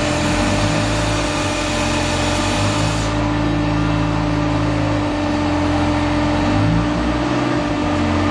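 Concrete pipe making machine running: a steady mechanical hum with one constant tone over a low rumble that shifts every second or so. The high hiss falls away about three seconds in.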